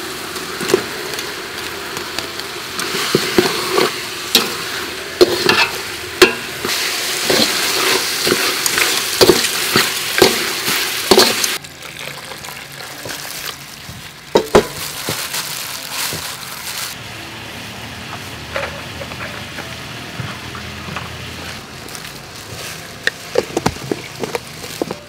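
Chicken pieces hitting hot oil and curry paste in a metal pot, sizzling loudly as a metal ladle stirs and clinks against the pot. Near the middle the sizzling stops abruptly and gives way to a quieter sound of water poured onto grated coconut, with occasional light clicks.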